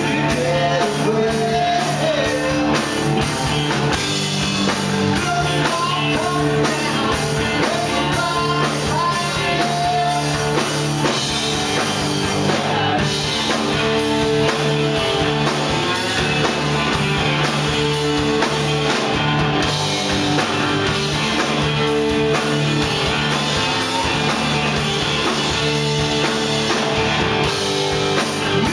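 Live rock band playing loud amplified rock on two electric guitars, electric bass and drum kit.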